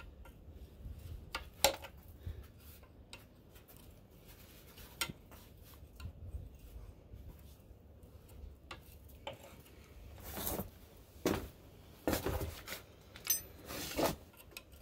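Steel wrench clinking and scraping on a metal line fitting on a Ford 8N tractor as the fitting is worked loose: scattered sharp metallic clicks, coming more often in the last few seconds.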